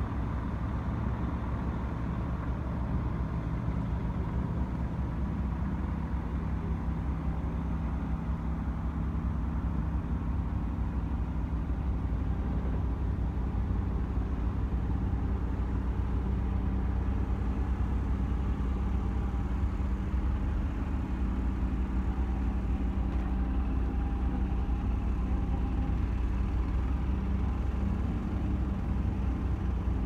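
Heavy vehicle engine idling steadily: a low, even hum with a constant pitch, growing slightly louder over the stretch.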